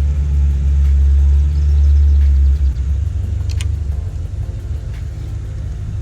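Deep engine rumble of a nearby motor vehicle, loudest for the first two and a half seconds and then dropping to a lower steady rumble; it is loud enough to be taken for a trash truck, or perhaps a car being started up.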